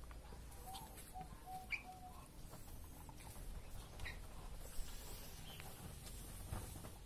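Faint bird calls: a quick run of about five short, even notes about a second in, then a few single higher chirps.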